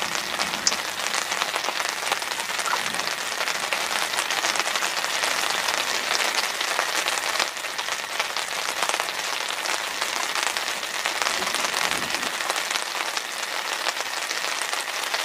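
Steady rain pattering on the fabric canopy over a small boat and on the river around it.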